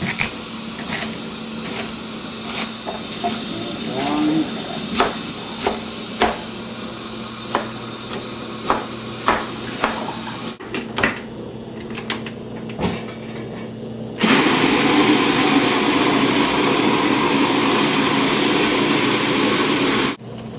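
Kitchen knife chopping red cabbage on a plastic cutting board, with irregular chops about once or twice a second and a few clatters. Then, about fourteen seconds in, a food processor runs steadily for about six seconds, blending the cabbage, and stops suddenly.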